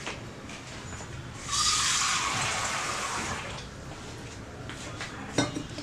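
Water running in a brief gush of about two seconds that starts abruptly and tapers off.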